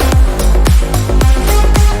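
Electronic dance music with a steady kick-drum beat under sustained synth chords.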